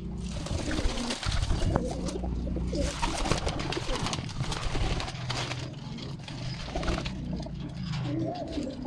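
Several domestic high-flyer pigeons cooing in a loft, low repeated coos overlapping one another.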